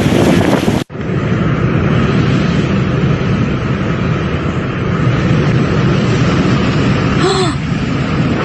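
Hurricane-force wind blowing hard and steadily, buffeting the microphone. The sound drops out for an instant about a second in and then the roar resumes. Near the end there is a brief voice-like cry.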